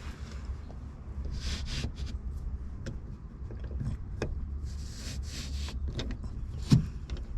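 Pickup's rear sliding window glass sliding in its track, two brief scraping slides, with a few clicks and a sharp knock near the end, over a steady low rumble.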